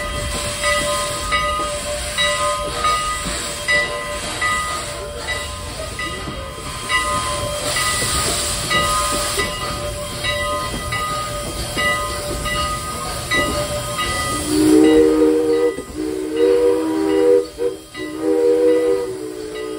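Steam train under way: steady steam hiss with a regular rhythmic beat of exhaust and wheels. About three-quarters of the way through, the locomotive's chime steam whistle blows: two long blasts, a short one and another long one, the pattern sounded for a grade crossing.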